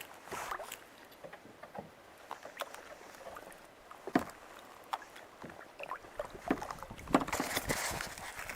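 Kayak paddling: the paddle dipping and splashing in the water, with scattered sharp clicks and knocks and a louder splashing stretch about seven seconds in.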